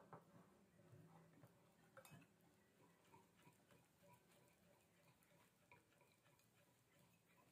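Faint, irregular clicking of a wire balloon whisk against a glass bowl as it stirs thick batter, with a slightly stronger click about two seconds in.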